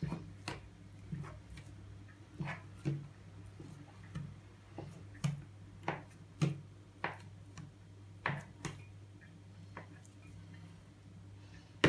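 Knife blade cutting through soft dough and tapping the wood-grain counter beneath: a string of irregular light clicks, roughly one or two a second. A steady low hum runs underneath.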